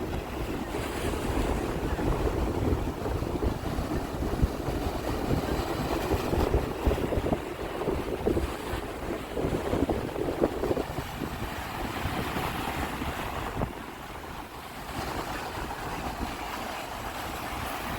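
Sea waves washing and surging, with wind buffeting the microphone in a heavy, gusty rumble. A wave swells up with a brighter wash about twelve seconds in.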